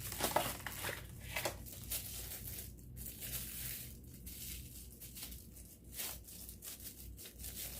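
Packaging crinkling and rustling as it is handled and pulled open, with irregular crackles that are busiest in the first second or two.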